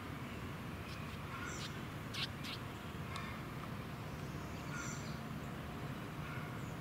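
Birds chirping now and then, with two sharper calls a little over two seconds in, over a steady low outdoor rumble.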